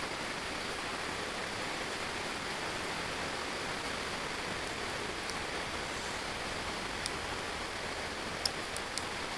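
Steady even hiss, with a few small sharp clicks near the end as fingers handle a small object right by the microphone.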